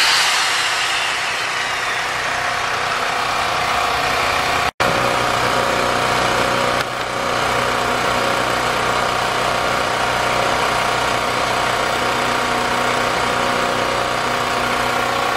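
Champion 3500-watt portable generator's single-cylinder gasoline engine running steadily. The sound drops out for an instant about five seconds in, then the same steady running carries on with more low rumble.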